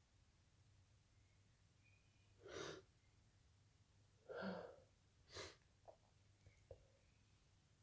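A person's induced sneeze: a breathy in-breath, a louder voiced gasp about two seconds later, then a short sharp sneeze, followed by a few faint clicks.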